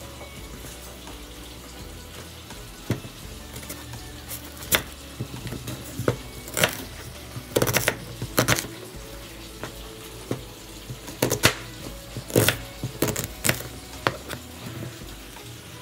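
Kitchen work: a dozen or so irregular sharp clinks and knocks, over soft background music.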